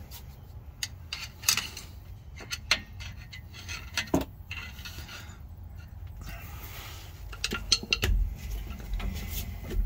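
Irregular sharp metallic clinks and scrapes: a steel pry bar working against the spider gears of an open rear differential while the ring gear and carrier are turned by hand, the loose gears knocking. The mechanic judges these spider gears worn, moving far more than they should.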